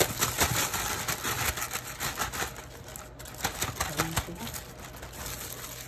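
Plastic freezer bag crinkling and crackling as it is shaken and peeled off a thawed block of raw falafel paste, emptying the paste into a plastic bowl. The crackling is dense for about three seconds, then thins out.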